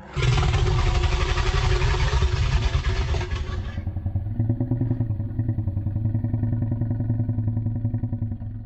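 A low, rough, pulsing dinosaur roar sound effect. It is harsh and full for about the first three and a half seconds, then drops to a deeper rumbling growl.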